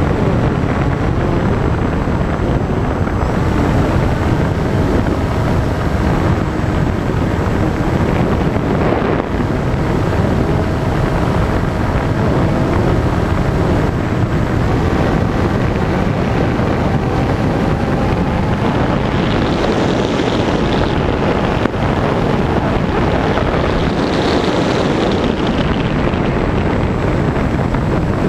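Steady, loud wind rush over the microphone of an RC glider's onboard FPV camera in flight. A faint whine comes and goes under it, swelling higher twice near the end.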